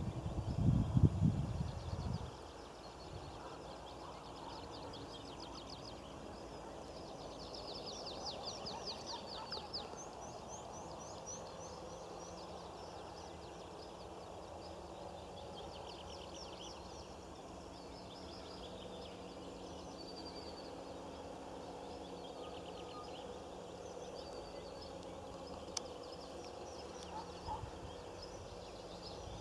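Birds singing in rapid high trills of quickly repeated notes over faint outdoor background noise. A low rumble dominates the first two seconds, then stops.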